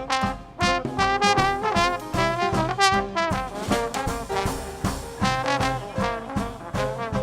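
Traditional Dixieland jazz band playing an instrumental passage, brass horns out front with a wavering vibrato over a steady beat.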